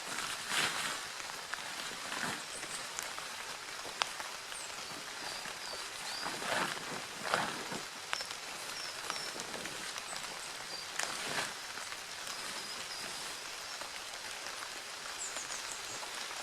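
Steady rain hiss with several bursts of rustling and one sharp click about four seconds in. Faint, short, high bird chirps come and go over it.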